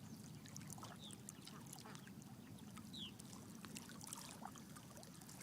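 Faint lakeside ambience: water lapping and trickling in soft scattered clicks over a low steady rumble, with two brief high bird chirps about one and three seconds in.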